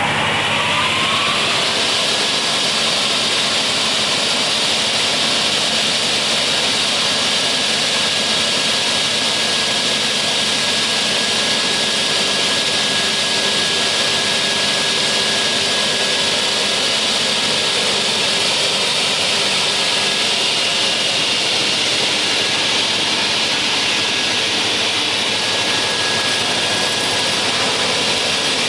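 Raimann K-23D chain-feed multi-rip saw running: its motor and blades finish winding up to speed in the first second or two, then run steadily with a loud, even whine.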